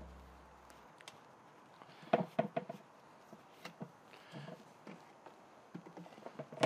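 Light plastic clicks and knocks as a 1.5-inch PVC pipe is lowered into a plastic sump basin and the basin lid is set on. A cluster of knocks comes about two seconds in, and more light taps lead to a sharper knock at the end.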